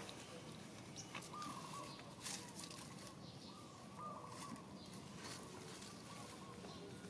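Faint, short chirping animal calls repeating about once a second, with scattered light clicks and rustles.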